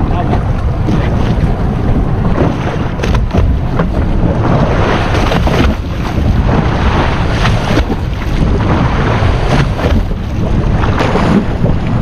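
Wind buffeting the microphone over choppy sea, with waves slapping against the hull of a drifting boat.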